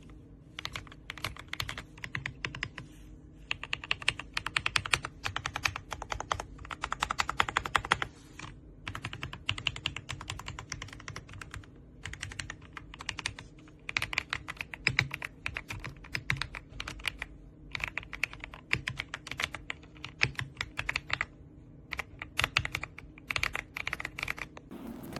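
Typing on an AULA S98 Pro gasket-mounted mechanical keyboard: fast runs of key clicks, broken by a few short pauses.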